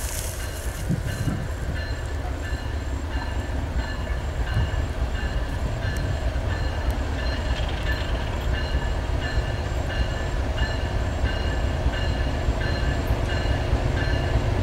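A freight train led by two GE ES43BBi diesel-electric locomotives approaching, with a low engine rumble growing steadily louder.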